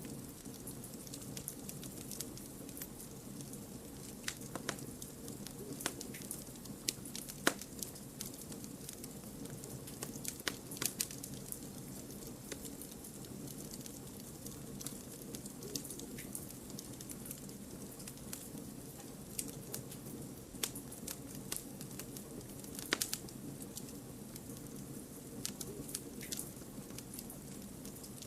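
Campfire wood burning with a steady low rumble of flame and scattered sharp crackles and pops, a few louder ones standing out.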